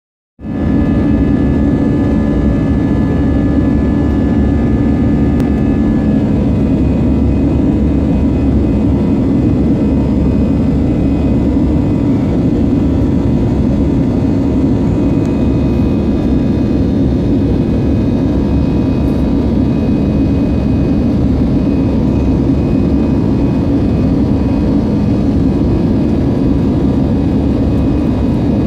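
Jet airliner's engines and airflow heard inside the passenger cabin during the climb after takeoff: a loud, steady drone with a few faint, steady whining tones.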